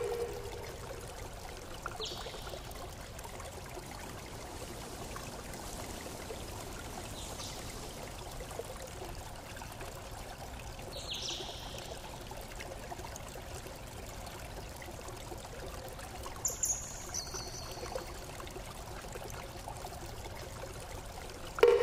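Steady rushing of running water, like a stream, with a few brief high chirps scattered through it. A short, loud ringing tone starts near the end.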